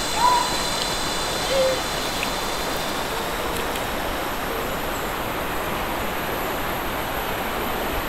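Shallow river running over rocks, a steady rush of water. Two brief pitched calls in the first two seconds.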